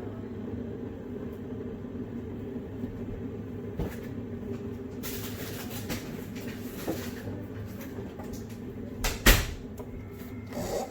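Cupboard door and contents handled while rummaging: a click, a stretch of rustling about five seconds in, and a loud bang of a door shutting about nine seconds in, over a steady low hum.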